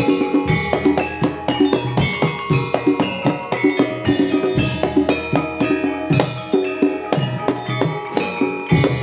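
Jaranan gamelan music: hand drums beating a dense, quick rhythm over ringing struck metal tones from gongs and metallophones.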